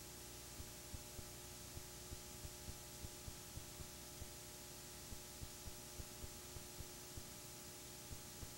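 Blank videotape playing back: steady tape hiss with a low hum tone and faint low pops about three times a second.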